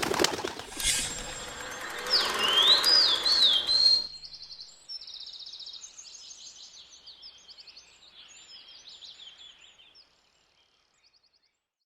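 Small birds chirping and singing, at first under a loud rushing noise that cuts off about four seconds in; the birdsong then carries on more faintly and stops about ten seconds in.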